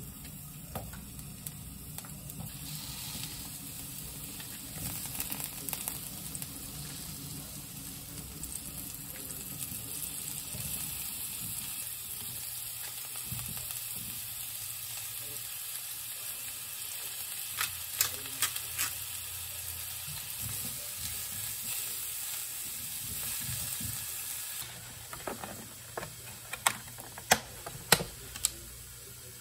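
Food frying in a pan with a steady sizzle, with a few sharp taps of a utensil partway through. The sizzle dies down shortly before the end, followed by several louder taps.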